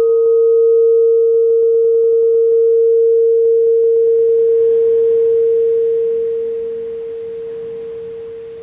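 A singing bowl's single steady tone ringing on after a strike, its higher overtone dying away within a few seconds. The tone fades gradually from about six seconds in.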